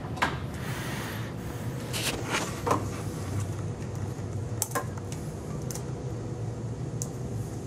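Scattered metal clicks and clinks from fitting a flywheel onto its shaft and working at the hub with pliers, over a steady low hum. A cluster of clicks comes about two to three seconds in and another near five seconds.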